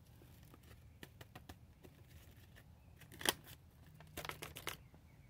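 Paper seed packet crinkling and being tapped in the hand as tiny seeds are shaken out of it, with scattered light clicks, one sharp click a little past halfway and a quick run of clicks soon after.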